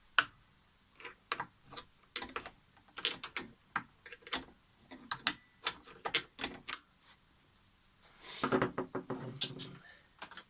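Small hard objects being handled: a string of irregular clicks and taps, then a rattling scrape lasting about a second and a half near the end.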